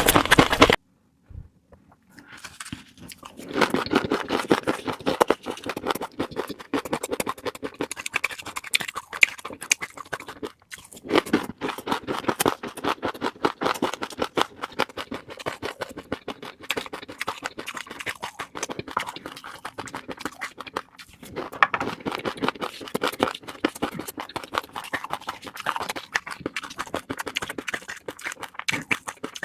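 Fish roe crackling and popping: a dense run of tiny clicks and pops in quick succession, starting after a brief silence near the start.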